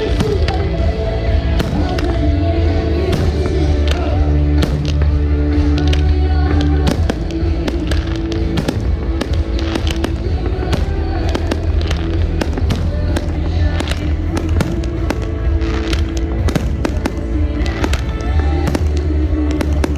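Fireworks bursting in quick, irregular succession, many sharp bangs, over loud music with heavy bass.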